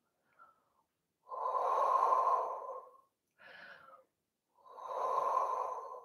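A woman breathing slowly and audibly while she holds a deep stretch. There are two long breaths about three seconds apart, with a short, fainter one between them.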